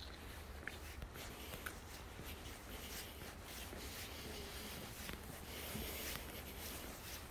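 Footsteps on pavement with rubbing and rustling against a handheld camera's microphone while walking, over a faint low rumble.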